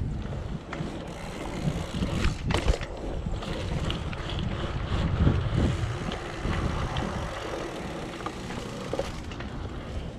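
BMX bike being ridden: tyres rolling over asphalt, with a few sharp knocks and rattles from the bike a couple of seconds in, and wind buffeting the microphone.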